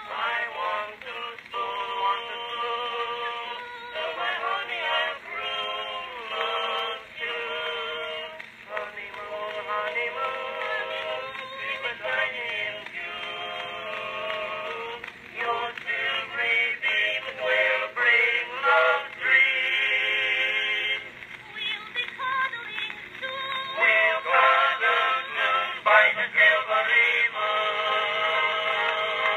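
Edison Fireside Model A phonograph playing a 4-minute Blue Amberol wax cylinder through its horn: an early acoustic recording of a woman and a male quartet singing with accompaniment. The sound is thin and boxy, with no bass and nothing above about 4 kHz, typical of acoustic-era cylinder recordings.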